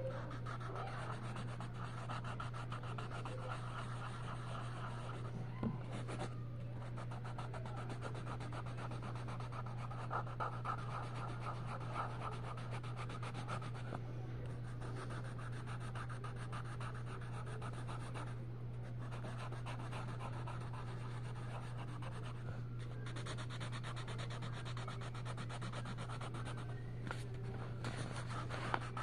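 Colored pencil scratching back and forth on coloring-book paper in quick, continuous shading strokes, pausing briefly a few times. A steady low hum runs underneath.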